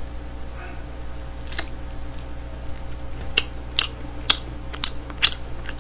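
A person eating smoked chicken close to the microphone: irregular sharp wet clicks and smacks of chewing and of pulling meat off the bone by hand, over a steady low hum.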